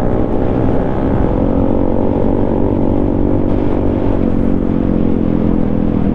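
Yamaha MT-15's single-cylinder engine on its stock exhaust, running at a steady cruise while riding, with wind rumble on the microphone.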